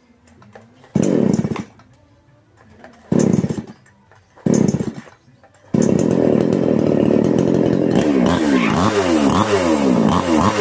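A small petrol engine, long unused, being test-started. It fires briefly three times and dies each time, then catches about halfway through and keeps running, revved up and down repeatedly near the end.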